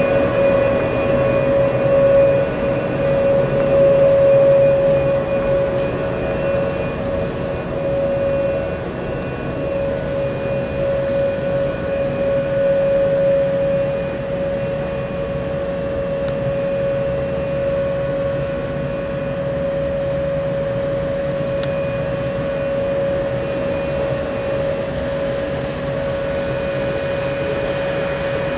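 JR 485-series 'Hana' electric multiple unit moving slowly past and away along the platform, with a steady hum over a low running rumble. It is a little louder in the first half of the stretch.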